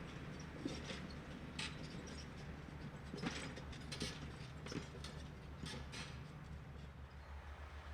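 Valtra T.214 tractor's diesel engine running steadily under load while pulling a five-furrow plough through grassland, with a handful of short sharp creaks and clicks scattered through it.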